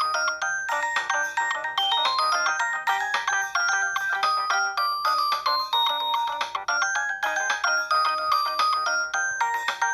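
Preloaded ringtone playing on a Samsung SGH-D600 mobile phone: a quick, bright melody of short notes, several sounding at once, with repeated rising runs.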